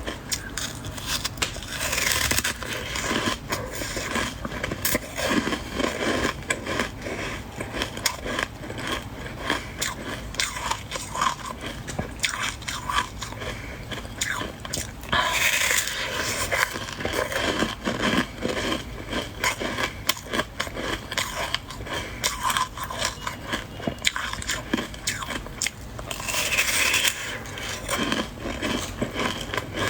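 Close-miked crunching of soft white freezer-frost ice being bitten and chewed, a dense run of small crackles. Three longer, louder crunching scrapes stand out: near the start, midway, and near the end.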